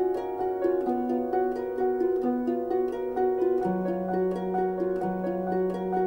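Instrumental music: a quick, even stream of plucked-string notes over long held low notes that shift pitch twice.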